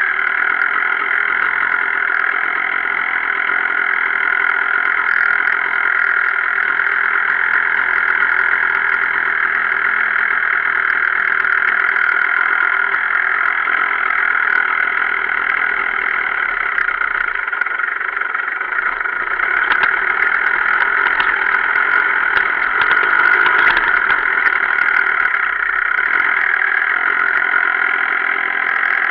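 Gas Gas 250 enduro motorcycle's engine running steadily while riding, heard from a camera mounted on the bike, a little louder about twenty seconds in.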